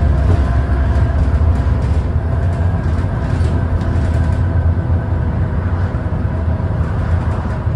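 Stagecoach bus heard from inside the passenger saloon while under way: a steady engine drone and road noise, with a faint steady whine above it.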